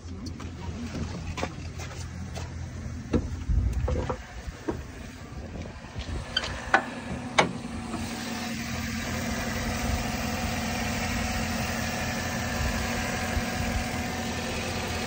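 Chevrolet Silverado 1500 pickup engine idling steadily, with a few sharp knocks and clicks in the first half. From about eight seconds in the idle is heard up close at the open engine bay, steadier and with more whir.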